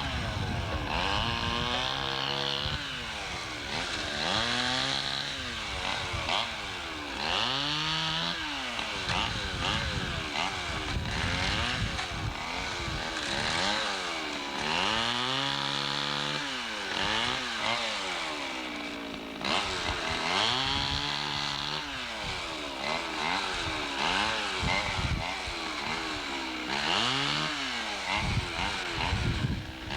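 Chainsaw running, its engine revving up and dropping back over and over, about every two seconds.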